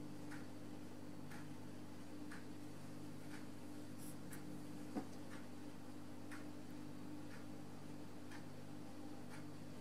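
A clock ticking faintly and evenly, about once a second, over a low steady hum. One sharper click comes about halfway through.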